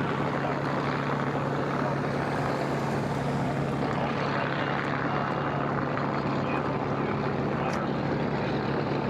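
Propeller aircraft engine noise, a steady drone with a constant low hum under it and no clear pass-by.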